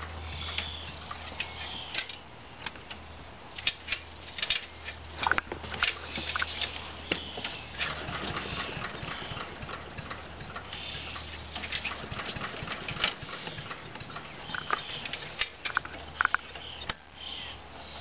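Scattered clicks and knocks as the engine of a small wood chipper is handled and readied for starting, over a faint low hum that fades out about two-thirds of the way through.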